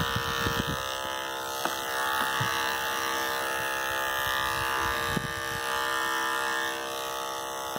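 Andis electric dog clippers running with a steady buzz, clipping the coat of a Miniature Schnauzer.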